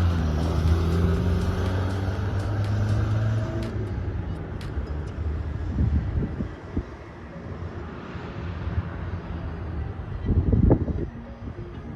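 1980 Triumph Spitfire's four-cylinder engine running with a steady note that fades away about four seconds in, followed by quieter road and outdoor noise and a short low rumble near the end.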